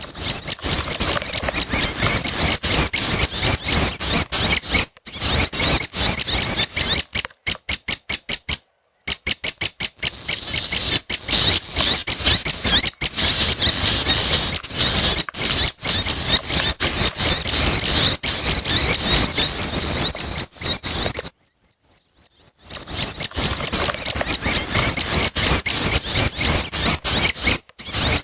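Young prenjak (prinia) chicks begging: rapid, high-pitched squeaky chattering with many quick notes. The chatter thins to a run of evenly spaced single chirps about eight seconds in and stops briefly about three quarters of the way through.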